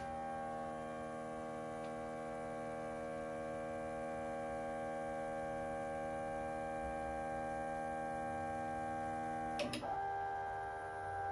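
Zenbot 4896 CNC router's axis motors whining steadily as the gantry travels back to its home corner to zero out. About ten seconds in there is a knock, and the whine changes pitch.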